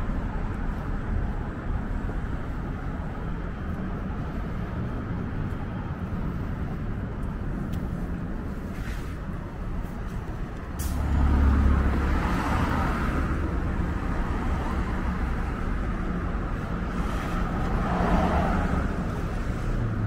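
Downtown street traffic: cars driving through an intersection with a steady engine and tyre rumble. A sharp click comes about 11 seconds in, and vehicles pass closer and louder just after it and again near the end.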